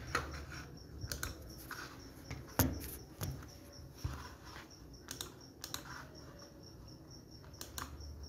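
Irregular sharp clicks of a computer mouse and keyboard, a dozen or so at uneven intervals, over a faint low hum.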